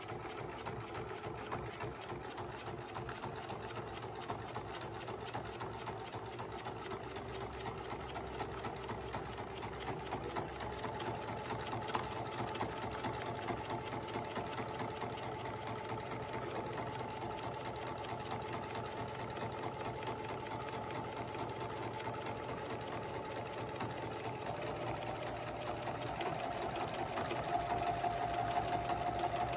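Pfaff electric sewing machine running steadily, its needle going in a rapid, even stitch rhythm while it top-stitches a long straight seam along a folded fabric edge. The motor hum gets a little louder near the end.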